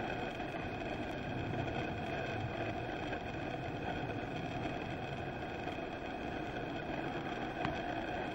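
Steady, engine-like background hum with no change in level, and one faint tick shortly before the end.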